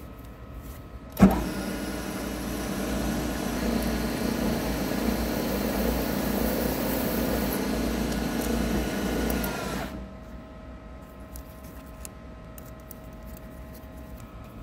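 Hafco BM-63VE milling machine's spindle motor switched on with a sharp jolt about a second in, running steadily for roughly nine seconds, then stopping quickly.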